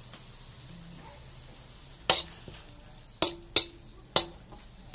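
Metal spoon stirring minced pork and pork intestines in a metal wok, knocking and scraping against the pan four times in the last three seconds over a faint sizzle of the meat frying.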